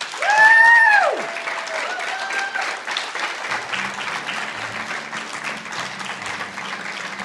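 Guests clapping with whoops of cheering. A loud whoop, falling at its end, comes in the first second and a shorter one around two seconds in, over steady applause. Recorded guitar music comes in faintly about halfway through.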